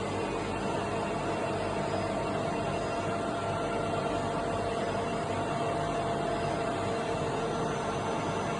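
Colchester Combi K3 CNC slant-bed lathe running: a steady mechanical hum with a few faint held whining tones, unbroken throughout.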